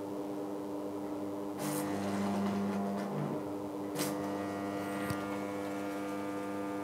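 AC arc welder's transformer, run through a bridge rectifier, humming steadily at mains frequency, with two brief clicks about two seconds in and again at four seconds.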